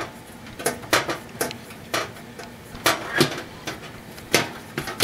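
Sharp metal clinks and taps as a replacement oven bake element is handled and set down against the floor and back wall of the oven, about a dozen at uneven intervals.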